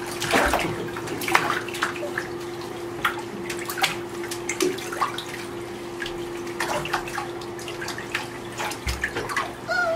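Water splashing and sloshing in a shallow bathtub as wet puppies are handled and washed by hand, in irregular small splashes over a steady low hum.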